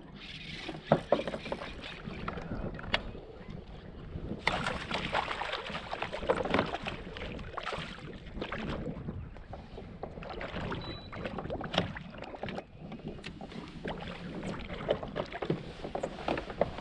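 Water splashing and sharp knocks against a fishing kayak as a hooked fish is brought alongside and netted. The loudest knock comes about a second in.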